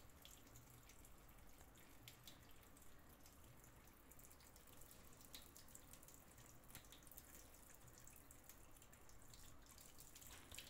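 Faint, steady trickle of water running from the outlet of a newly fitted water-purifier pre-filter housing into a stainless steel sink, with scattered small splashes, as trapped air is purged from the filter.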